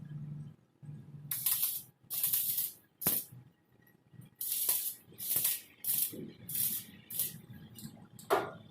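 A series of short hissing, sizzling bursts from a welder, about ten in quick succession, each lasting well under a second: a run of tack welds.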